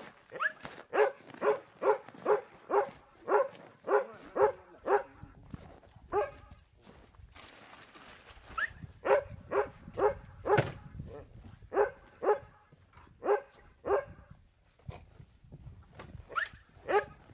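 A dog barking in runs of short, sharp barks, about two or three a second, with a pause of a few seconds in the middle and a couple more barks near the end.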